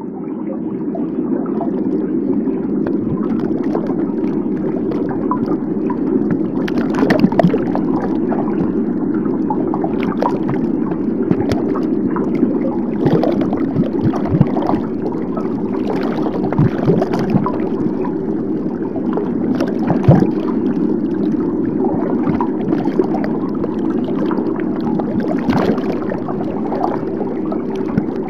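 Underwater ambience: a steady muffled rush with irregular clicks and pops scattered through it.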